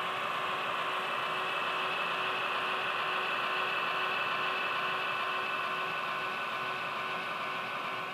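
HO scale model diesel locomotives running along the track, a steady whine of motors and wheels on the rails that drifts slightly in pitch.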